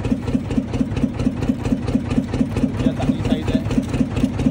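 Fishing boat's engine running steadily at low speed, with an even, rapid pulsing beat.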